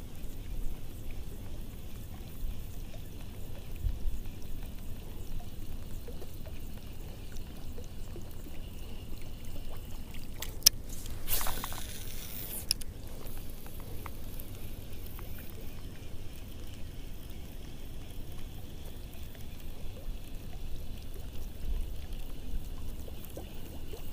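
Water splashing for about a second and a half, around eleven seconds in, over a low steady rumble of wind on the microphone.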